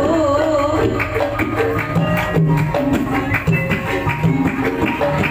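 Javanese gamelan music accompanying a lengger dance: a quick run of short struck notes at changing pitches over hand-drum beats.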